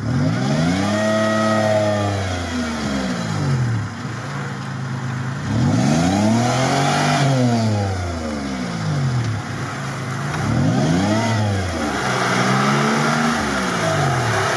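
Off-road Toyota 4Runner on GAZ-66 axles revving hard as it claws up out of a swampy mud hole. The engine pitch rises and falls about four times in repeated bursts of throttle.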